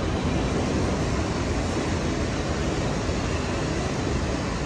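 Freight train of autorack cars rolling past: a steady rumble and rush of steel wheels on rail.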